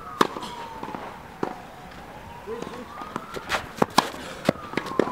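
Tennis balls struck by racket on a clay court: sharp pops of ball on strings, the loudest just after the start and several more in quick succession in the second half. A siren wails slowly up and down in the background.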